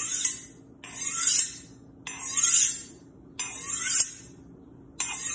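Chef's knife blade drawn along a Wüsthof honing steel in even strokes from heel to tip, alternating sides: a rasping metal-on-metal scrape about once a second, five strokes in all, with a light clink at the end of one stroke.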